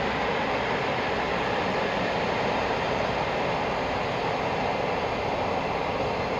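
Twilight Express sleeper train running across a steel truss railway bridge: a steady, even rumble with no distinct wheel clacks.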